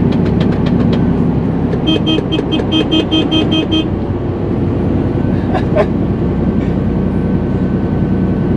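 Truck engine droning steadily inside the cab while driving. About two seconds in, a vehicle horn gives a quick series of about nine short toots lasting two seconds, a horn greeting to a passing acquaintance.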